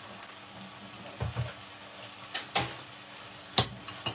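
Hot water poured from a kettle into a glass Pyrex measuring jug of stock, a faint even splashing, followed by a metal spoon stirring in the jug, with a sharp clink against the glass near the end.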